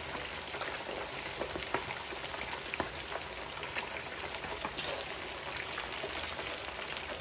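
Fish frying in a pot of hot oil: a steady sizzle with many small pops and crackles.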